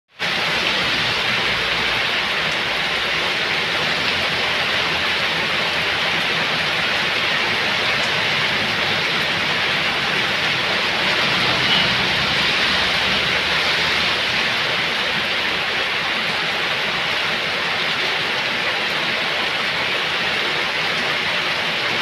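Heavy rain falling steadily on flooded pavement and leaves: a dense, even hiss that holds level throughout.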